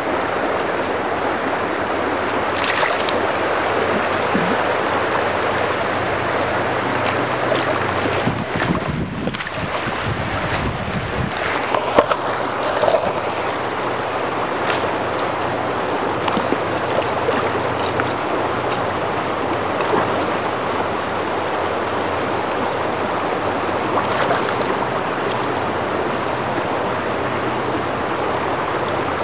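Shallow river riffle rushing steadily over stones, with a few brief knocks about twelve seconds in.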